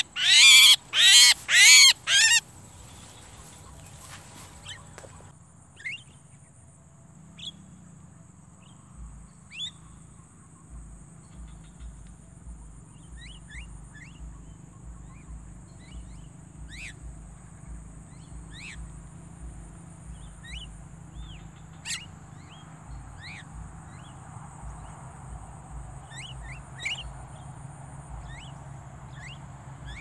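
Javan myna giving a run of loud, harsh squawks, two or three a second, that stop about two seconds in. After that there are scattered short chirps from mynas on the ground.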